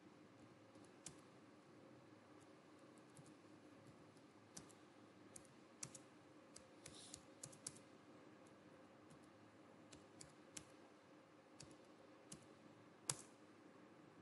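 Faint, scattered keystrokes on a computer keyboard, with a quick run of taps a little past the middle and one sharper keystroke near the end.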